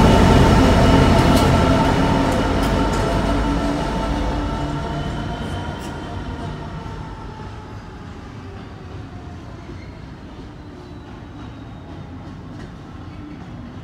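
Class 66 diesel-electric locomotive of a railhead treatment train passing close and running away, its EMD two-stroke engine note fading and dropping slightly in pitch over about eight seconds, with a few wheel clicks over rail joints as it goes. It settles to a steady distant engine rumble.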